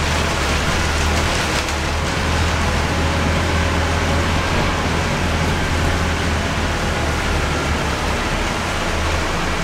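Inside a moving Scania K230UB bus: the Scania DC9 five-cylinder diesel engine runs with a steady low drone under tyre and road noise and rain on the windows.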